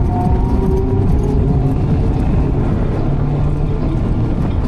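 Car cruising along a road, heard from inside the cabin: a steady low engine and tyre-road rumble.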